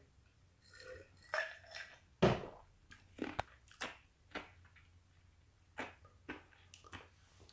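Quiet swallowing as a man drinks from a glass, then a sharp knock a little over two seconds in and a scattering of short, soft clicks.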